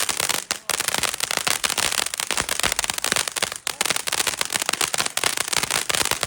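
TNT Viva El Futbol consumer firework going off, a dense, rapid, continuous crackle of small pops.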